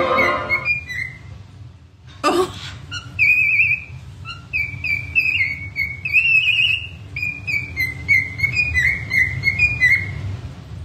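Cockatiel whistling a warbling, tune-like song of many short rising and falling notes. There is a single knock about two seconds in, and a passage of string music cuts off in the first second.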